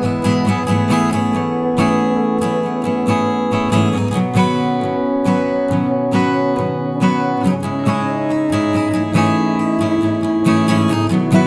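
Background music: acoustic guitar strumming and picking in a steady rhythm.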